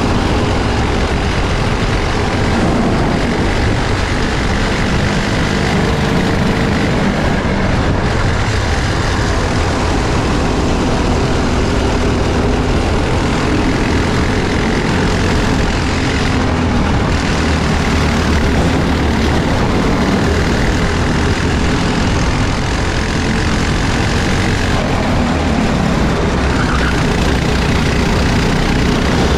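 Racing karts' single-cylinder Briggs & Stratton four-stroke engines running at racing speed, heard onboard, with the pitch rising and falling through the corners. A dense rush of wind and tyre noise runs underneath, and the engine of the kart just ahead blends in.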